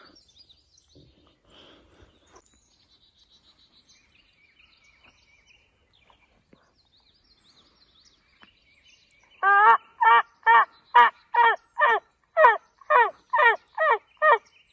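Mouth-blown turkey call sounding a loud series of about a dozen yelps, each note dropping in pitch, starting about halfway through. Faint songbird chirps come before it.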